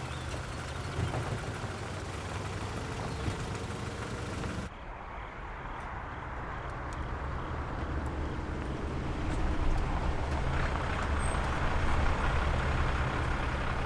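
A small truck's engine and road noise while it drives along. About five seconds in the sound changes abruptly to a car's engine, which grows louder as the car drives up.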